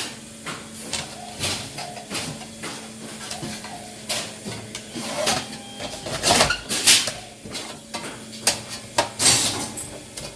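Sheet-metal channel-letter return and back panel clattering and scraping as they are slid together by hand, with irregular metallic clicks and knocks, loudest a little past halfway.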